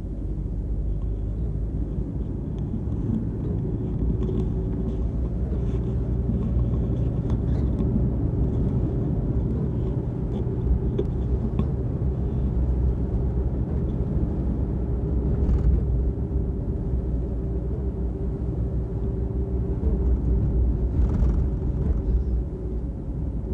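A car driving along a road, heard from inside the cabin: a steady low rumble of engine and tyres with a faint hum.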